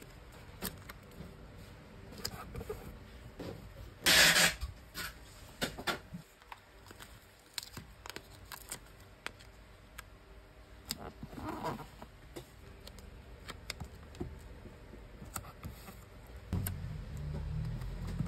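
Hands handling paper stickers on a cardboard shipping box: scattered light taps, clicks and paper rustles as stickers are peeled and pressed on, with one short, loud rustle about four seconds in and a smaller one near the middle.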